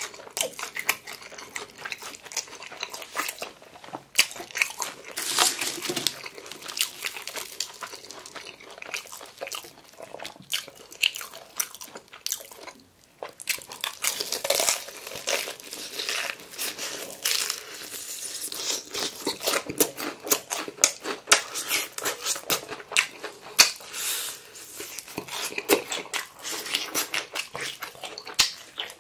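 A person biting into and chewing crispy fried chicken, a dense run of crunches from the breaded crust, with a brief lull about halfway.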